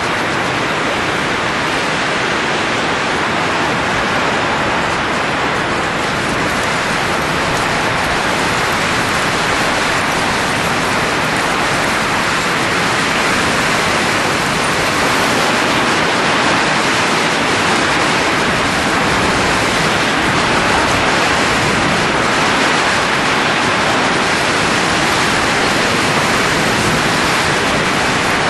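Steady rushing of blowing air, a continuous even hiss with no breaks, growing slightly louder about halfway through.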